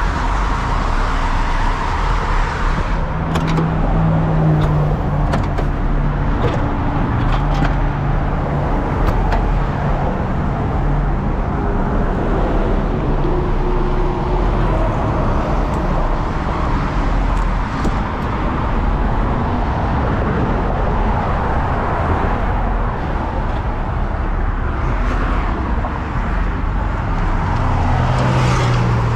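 Steady freeway traffic noise, vehicles rushing past close by, with heavy truck engines running and a few light clicks.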